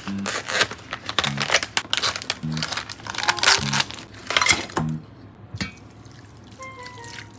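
Crinkling and rustling of packaging being handled: a dense run of crackles that stops about five seconds in. Under it, background music with a low note repeating about once a second.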